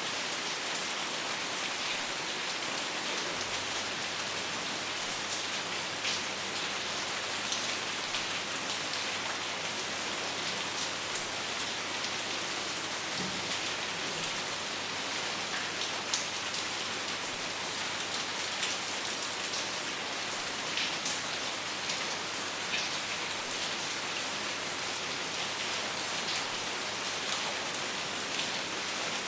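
Steady rain falling on a surface: an even hiss with scattered individual drops ticking through it.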